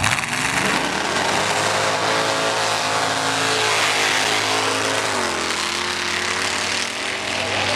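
Chevy II's engine revving hard as the car accelerates from a standing start on a snow-covered drag strip, its pitch climbing in the first second. The revs drop suddenly about five seconds in.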